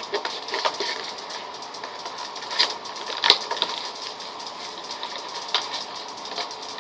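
Stiff plastic retail packaging being worked open by hand: steady crinkling and rustling with a few sharp plastic cracks and clicks, the loudest about two and a half and three and a half seconds in.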